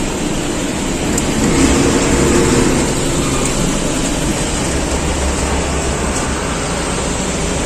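Steady road-traffic noise from passing vehicles: a low rumble under an even hiss, swelling briefly about two seconds in.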